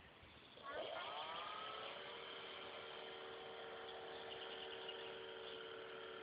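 Electric motor and propeller of a Multiplex Fun Cub RC floatplane spinning up about a second in, then holding a steady whine as the plane taxis across the water.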